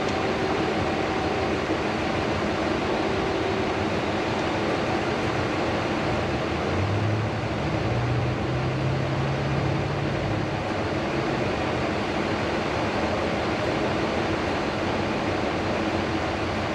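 Steady, even rushing background noise, with a faint low hum from about seven to ten seconds in.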